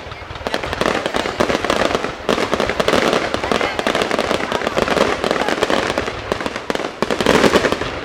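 Fireworks going off in a dense, continuous barrage of rapid bangs and crackles with no pause.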